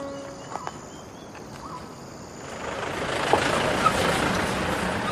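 A held flute note dies away at the start. From about halfway through, the rushing noise of a motor vehicle rises and then holds steady.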